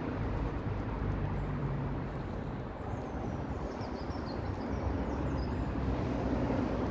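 Wind buffeting the phone's microphone, a steady low rumbling hiss, with a few faint high chirps about three to five seconds in.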